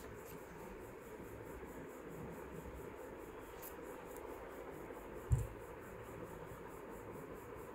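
Quiet room tone with a faint, rapid, high-pitched pulsing throughout, and a single dull, low thump a little past halfway through.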